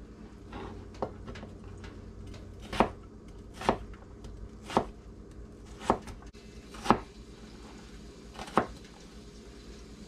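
Chef's knife chopping an onion on a plastic cutting board: about seven sharp knife strikes on the board, roughly one a second, with softer cuts in between.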